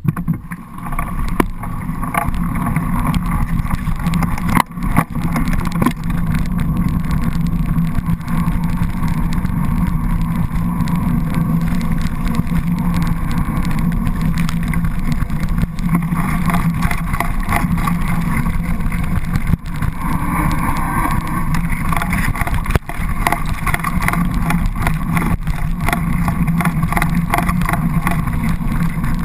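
Continuous rumble of wind and tyre vibration picked up by an action camera on a bicycle riding fast along a bumpy dirt trail, with a few sharp knocks from bumps.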